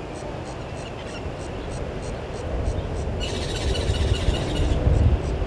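Outdoor bush ambience at a waterhole: a high ticking about three times a second, a burst of high buzzing a little past the middle lasting under two seconds, and a low rumble that grows louder toward the end.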